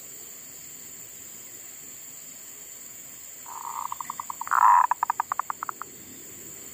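Zebra dove (perkutut) singing its cooing song: a soft opening coo, then a louder coo, then a quick run of short staccato notes. It starts about halfway through and lasts a little over two seconds.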